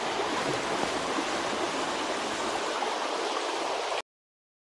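Steady rush of fast-flowing creek water, cutting off suddenly about four seconds in.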